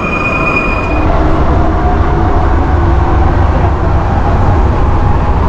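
Alstom NS-2016 metro train: a high steady whine from the train at the platform for about the first second. After that comes the steady low rumble of the train running, heard from inside the car.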